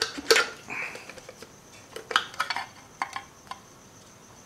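Metal valve cover being pried and pulled off a Subaru EJ25 engine's cylinder head: scattered metal clicks and knocks, a cluster at the start and more about two and three seconds in, with a brief scrape about a second in.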